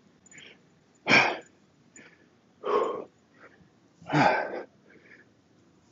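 A man breathing hard, winded from heavy kettlebell swings: three loud, forceful exhales about a second and a half apart.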